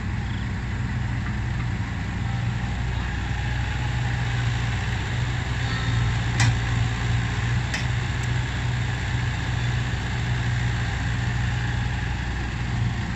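Steady low drone of heavy diesel engines running as a Komatsu excavator loads soil into a dump truck. Two short sharp knocks come about six and a half seconds in and again a second later.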